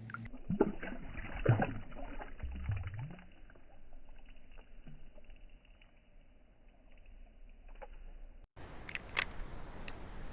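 Water sloshing and splashing in irregular bursts, dull and muffled for most of the stretch. About eight and a half seconds in, the sound changes abruptly to brighter, clearer splashes and drips.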